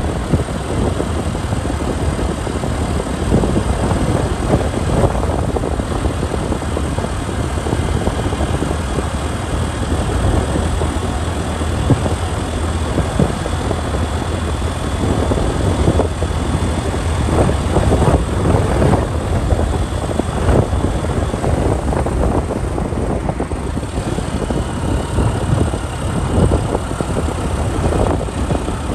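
Motorcycle ride through city traffic heard from on the bike: steady engine and road noise with a heavy low rumble.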